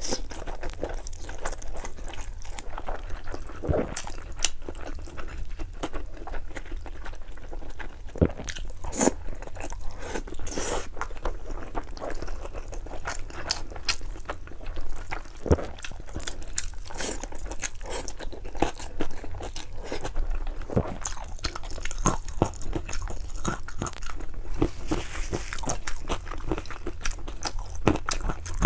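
A person eating spicy noodles close to the microphone: continuous chewing and biting, with many short clicks throughout.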